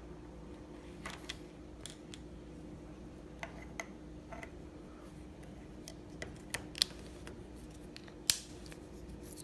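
Scattered sharp plastic clicks and taps from handling a TV remote control and a test swab, the loudest near the end, over a steady low hum.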